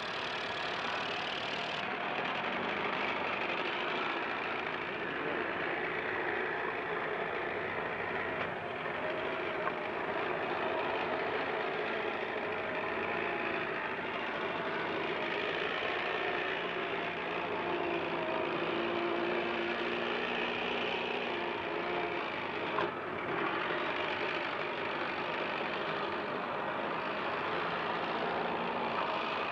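An engine running steadily under a heavy haze of hiss, with faint shifting tones, and a brief click about two-thirds of the way through.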